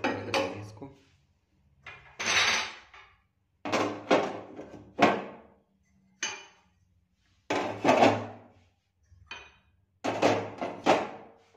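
Metal burner parts and a pan support being set back onto a stainless-steel LPG gas stove top: about eight separate clanks and knocks, each ringing briefly.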